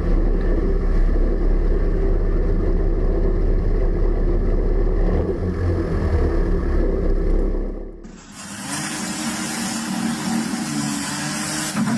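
Steady engine rumble with a deep low drone and several constant hum tones. About eight seconds in it cuts abruptly to a hissier, rushing engine sound with a steadier hum.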